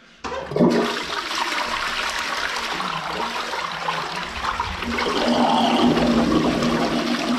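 Wall-hung toilet flushing: a sudden rush of water from the cistern through the bowl, running steadily and draining away freely, the sign that the blockage has been cleared.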